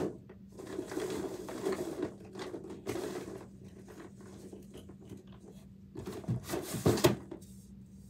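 Rummaging through plastic fidget toys in a dresser drawer. There is a sharp knock at the start, a few seconds of rattling and rustling, a quieter pause, then a louder clatter of knocks near the end. A faint steady hum runs underneath.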